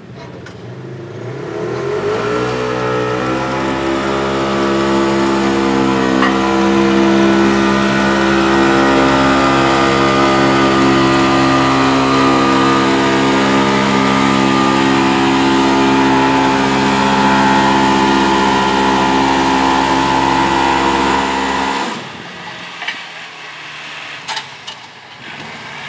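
Side-by-side UTV engine revving up and held at high, steady revs for about twenty seconds while dragging a weight-transfer sled, then dropping off suddenly near the end as the pull finishes.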